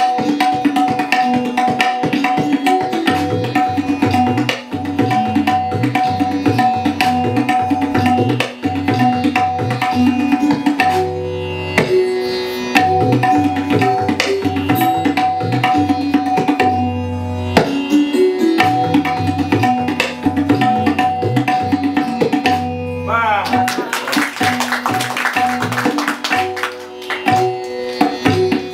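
Tabla solo: dense, fast strokes on the dayan and bayan, played over a repeating melodic accompaniment line.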